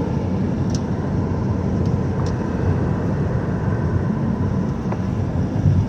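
Steady road and engine rumble inside a moving car's cabin, with a few faint clicks.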